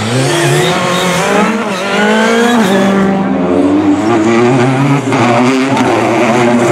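Turbocharged four-cylinder rally car engines at full throttle, first a Ford Fiesta, then a Citroën DS3: the revs climb steadily, drop sharply about two and a half seconds in, then climb again with a brief dip near five seconds, as at gear changes.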